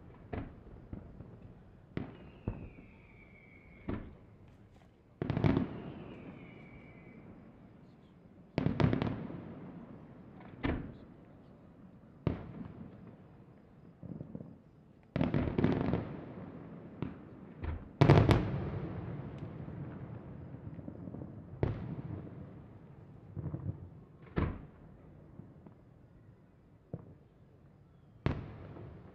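Aerial firework shells bursting in the sky at irregular intervals, each sharp bang followed by a rolling echo, with a few quick clusters of bursts and the loudest bang about eighteen seconds in.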